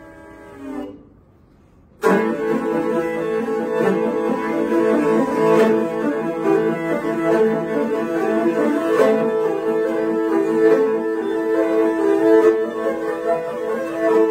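Two morin khuur (Mongolian horsehead fiddles) played together. A held note dies away into a short pause, then about two seconds in both come in loudly at once with rapid bowing and a sharp accent recurring at a steady beat.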